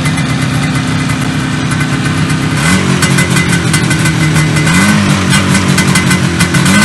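IZh Jupiter two-cylinder two-stroke motorcycle engine running at idle with the right cylinder firing only every other stroke, a misfire traced to a faulty ignition coil. The revs lift slightly about two-thirds of the way through.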